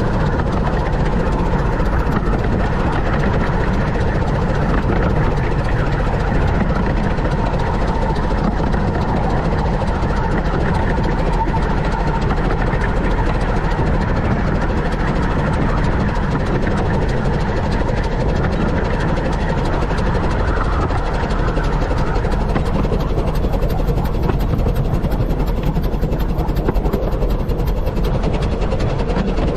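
The 15-inch gauge steam locomotive River Mite and its train running along the line: a steady, even rumble of the train in motion.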